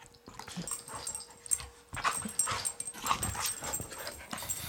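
An adult dog and a six-month-old puppy play-fighting: scuffling with short, irregular dog noises, busier from about two seconds in.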